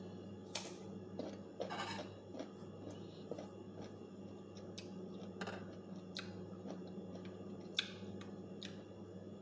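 Quiet eating at a plate: a few faint, sharp clicks and light clinks of a ceramic plate and small bowl as mango slices are picked up by hand and eaten, over a steady low hum.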